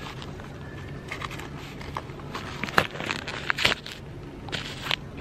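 A Dr Morepen blood pressure arm cuff being wrapped and fastened around the upper arm: its fabric and hook-and-loop fastener give a run of short, irregular rasps and scratches, loudest in the middle.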